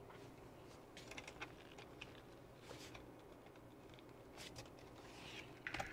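Faint scattered clicks and light taps of a hex driver and small parts being worked on a plastic RC car chassis, with a slightly louder cluster near the end.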